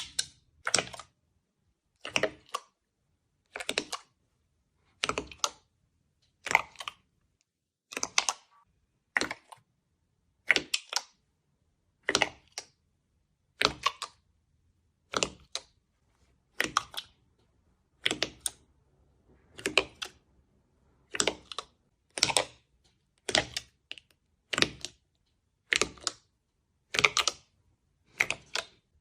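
Slime being pressed and squished by hand, giving short crackling, clicky bursts, often two close together, about every second and a half, in a steady rhythm with quiet between.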